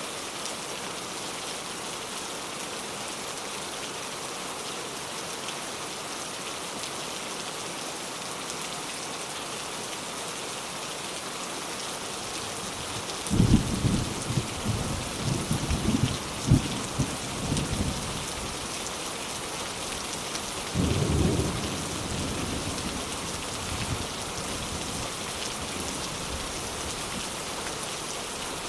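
Steady rain falling throughout, with a burst of thunder about halfway through: several cracks and rumbles over about four seconds. A second, shorter rumble of thunder follows a few seconds later.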